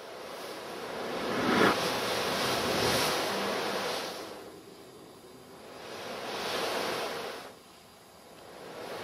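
Surf-like rushing noise, like waves washing in, swelling and fading over a few seconds at a time: one long swell, a second shorter one, and a third building near the end.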